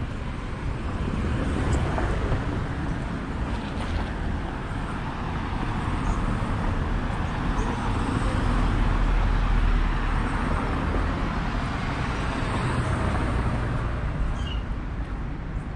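City street traffic: cars passing close by, the sound of engines and tyres swelling and fading over a steady low rumble.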